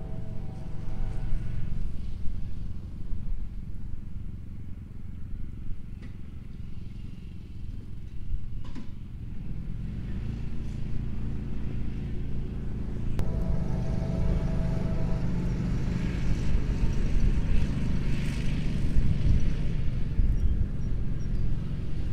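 A vehicle engine running steadily with a low rumble, growing louder about halfway through.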